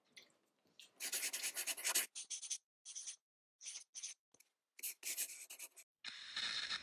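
Pen nib scratching across paper in a series of strokes, one long stroke followed by several short ones, as a drawing sound effect. A steady hiss begins near the end.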